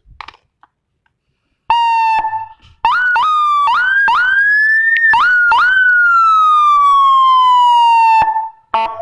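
Electronic vehicle siren run through its tones: a short steady horn-like blast, then a run of quick rising yelps, then one long falling wail that cuts off abruptly near the end.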